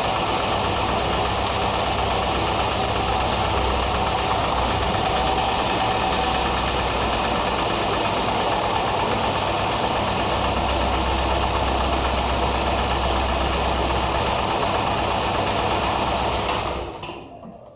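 Ford Ka's Endura engine running steadily, then the sound drops away near the end.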